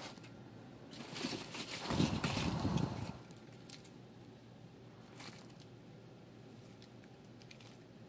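Cardboard egg-crate flats in a plastic tub being shifted by hand: rustling and crackling for about two seconds, loudest near the middle of that stretch with some low bumping, then a few faint scratches and ticks.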